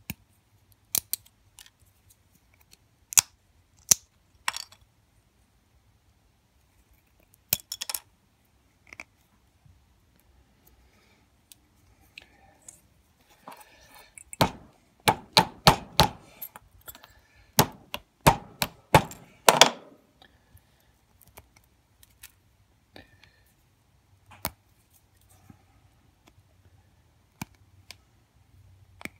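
Sharp clicks, taps and cracks of a small metal capacitor case being knocked and pried against a steel anvil as its red potting is broken away. They are scattered at first, then come as a quick run of loud knocks around the middle.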